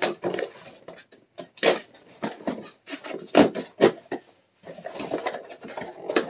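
Cardboard shipping box being torn open and handled: a series of sharp, irregular rips and crackles of packing tape and cardboard, the loudest a little over three seconds in, then a flurry of smaller rustling as hands dig into the box.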